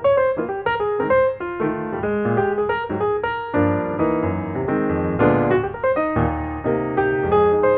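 Background piano music: a flowing line of quick notes over lower held chords.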